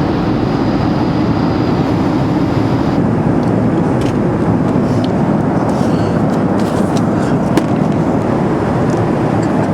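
Airliner cabin noise in flight: a loud, steady rush of jet engines and airflow, with a few faint ticks and knocks.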